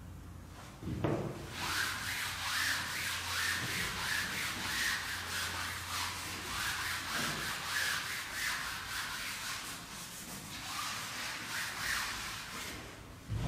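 Blackboard eraser rubbing chalk writing off a chalkboard in quick back-and-forth strokes. A thump comes about a second in; the strokes follow and go on until near the end.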